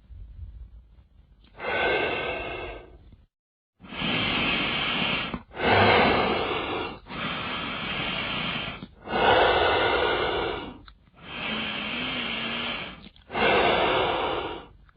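Breathing played back at half speed, so deepened and drawn out: a run of about seven long breaths in and out, each one to two seconds, with short pauses between them.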